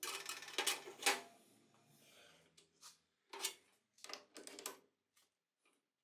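Metal lathe tooling being handled and set up: a quick flurry of metal clicks and rattles in the first second, then a few scattered single clinks. No motor is running.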